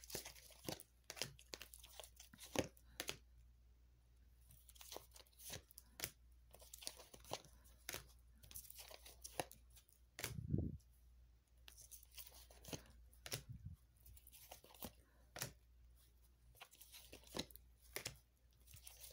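Tarot cards being handled, drawn and laid down on a cloth-covered table: a faint, irregular run of short sharp card clicks, snaps and slides, with a soft thump about ten seconds in.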